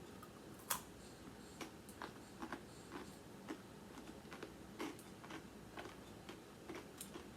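Chewing crunchy Takis Blue Heat rolled tortilla chips: a run of faint, irregular crunches, the sharpest about two-thirds of a second in.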